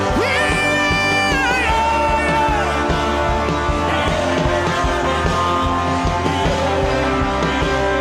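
Live worship band music: a steady bass and sustained chords, with a held lead note, voice or instrument, that swoops up at the start and slides down about a second and a half in.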